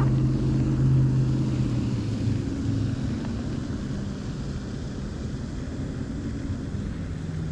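A distant engine drones with a steady low hum that fades after about three seconds.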